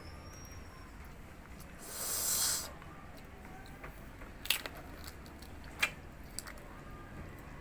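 Crispy fried pork face being bitten and chewed close to the microphone: a short crunchy burst about two seconds in, then two sharp cracks a little over a second apart.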